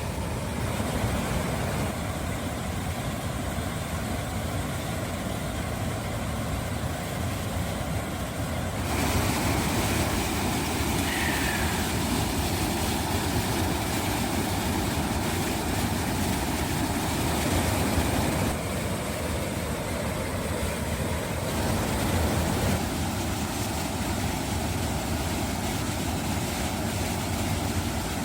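Waterfall rushing steadily, its roar changing abruptly in level and tone a few times.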